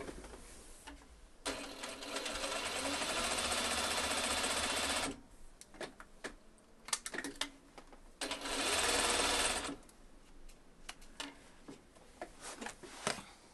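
Juki sewing machine stitching a patchwork seam: one steady run of about three and a half seconds, then a second short run of about a second and a half. Scattered light clicks come between and after the runs.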